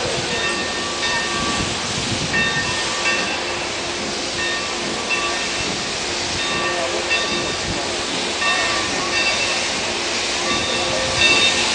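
Steam locomotive 3751, a 4-8-4, pulling away with its bell ringing over and over above a steady hiss of steam.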